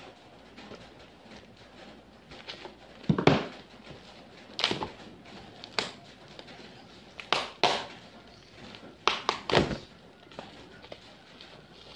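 Black plastic parcel wrapping being torn and crinkled by hand as it is pulled off a box, in irregular rips and rustles with a few dull knocks of the package on the table. The loudest rip comes about three seconds in.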